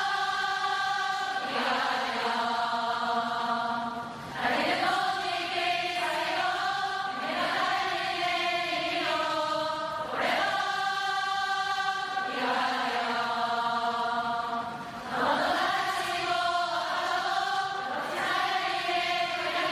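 Many voices singing together in long held notes, like a choir, the chord shifting every couple of seconds. The singing dips briefly about four seconds in and again about fifteen seconds in before picking up with a new phrase.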